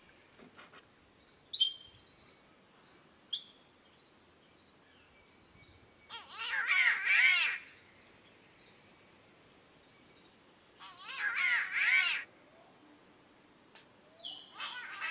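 Spotted catbird giving harsh, wavering, cat-like wailing calls: two long ones of about a second and a half each, and a third starting near the end. A few short, sharp chirps come in the first few seconds.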